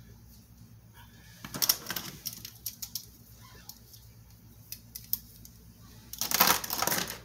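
Plastic pens clicking and tapping as they are handled and set down on a wooden tabletop: scattered light clicks, then a louder, longer scuffling clatter near the end.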